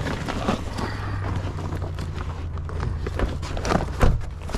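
Footsteps on a hard surface at a walking pace over a steady low hum, with a louder knock near the end.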